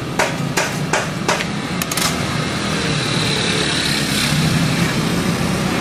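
A few sharp clinks in the first two seconds, then a road vehicle's engine running steadily and growing gradually louder toward the end.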